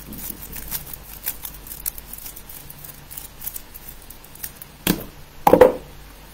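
Plastic 3x3 speed cube being turned rapidly: a fast run of light clicks and clacks from its layers. About five seconds in comes a sharp smack, then a louder thump just after.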